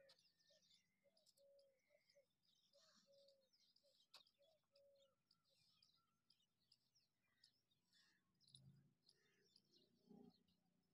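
Near silence, with faint birds chirping and calling in a string of short repeated notes.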